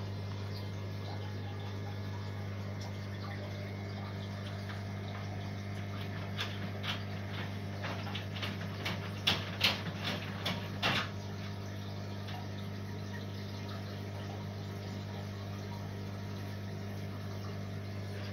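A sumped aquarium running: a steady low hum from its pump with water trickling through the overflow. In the middle comes a cluster of sharp clicks and taps, loudest around ten seconds in.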